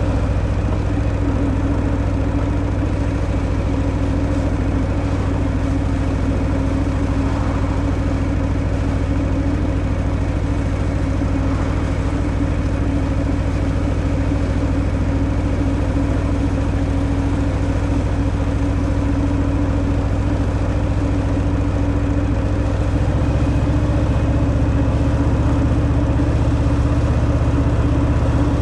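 Harley-Davidson Fat Boy's Milwaukee-Eight 114 V-twin running steadily through its stock exhaust. About 23 seconds in, its low rumble steps up and gets fuller.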